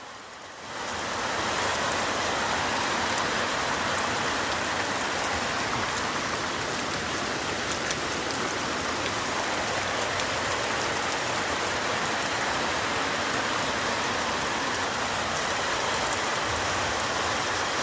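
Steady rain falling, an even hiss with faint drop ticks, coming in about a second in and holding level: the first rains of the rainy season.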